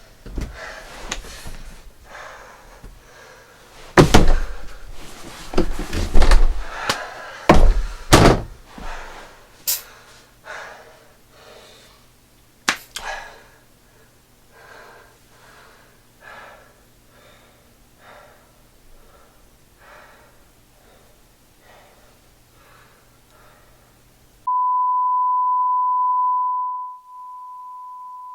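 A run of thumps and bangs, loudest between about four and nine seconds in, trailing off into softer, evenly spaced knocks. Near the end a steady high beep tone starts and holds.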